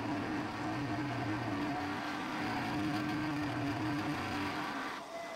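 Aciera F1 milling machine running at about 2000 RPM, its cutter taking a full-depth cut through a thick brass ratchet-wheel blank as the table is fed by hand: a steady machine hum with cutting noise over it. Near the end the lower part of the hum fades and the sound eases.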